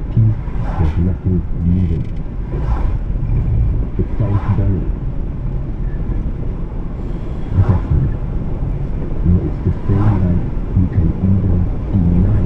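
A car driving on a wet road, heard from inside the cabin: a steady low rumble of engine and tyres, with several brief hissing swells spread irregularly through it.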